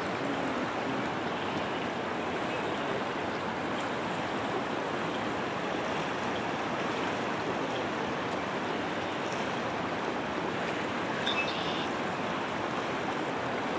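Fast-flowing, swollen river rushing steadily, a constant wash of moving water.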